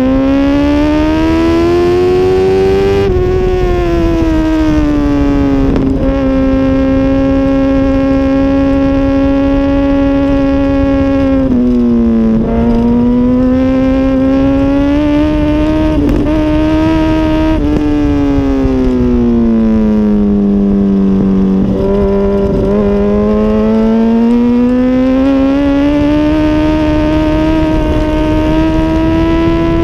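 2006 Honda CBR1000RR's inline-four engine running hard at track speed. The revs climb, drop sharply about three seconds in, hold level for several seconds, dip and climb again, fall away past the middle, then climb steadily toward the end, over a rush of wind noise.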